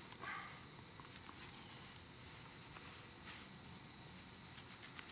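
Faint, steady high insect chirring, like crickets, with a few soft clicks and rustles from a knife cutting a deer's hind leg free at the hip joint.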